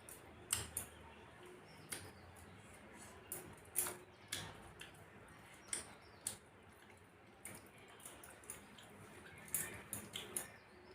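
A person eating a rice meal: faint, wet chewing and mouth clicks, short and irregular, about one or two every second.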